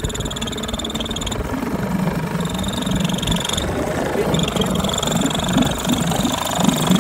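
Yamaha outboard motor running at idle: a steady low hum with a thin high whine that cuts in and out, growing slightly louder.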